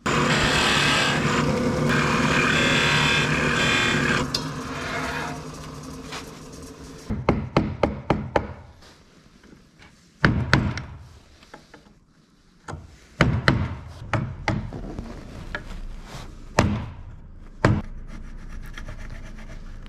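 A power tool runs loudly for about four seconds, then dies away. A hammer then taps a wood chisel into a hardwood board, first a quick run of strikes and then single and paired taps.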